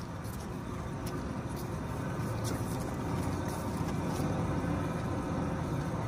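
Raised front wheel of a 2008 Ford F-150 spinning freely after a hand spin, with a steady grinding from its worn front wheel bearing (hub assembly), the cause of the truck's whining while driving.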